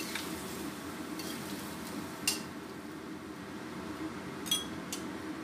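Metal spatula stirring vegetables and meatballs in a stainless steel wok over a steady sizzle, scraping and clinking against the pan a few times, once about two seconds in and twice near the end.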